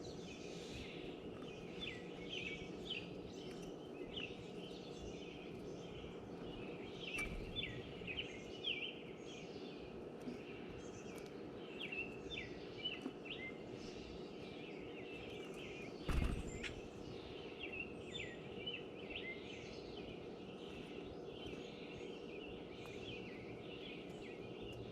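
Small birds chirping at a tray feeder, many short high chirps coming in clusters over a steady low background hum. A single knock about 16 seconds in, the loudest sound.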